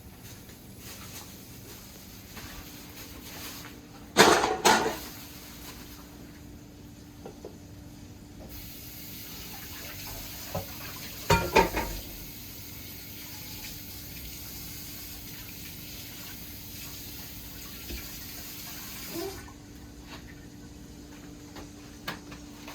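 Kitchen tap running into a sink for about eleven seconds, starting and stopping abruptly, with two loud clatters, one about four seconds in and one while the water runs.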